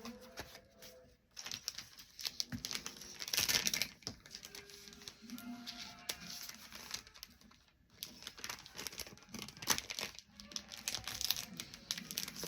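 Plastic packaging crinkling and rustling as it is handled, in two main spells of rapid crackles.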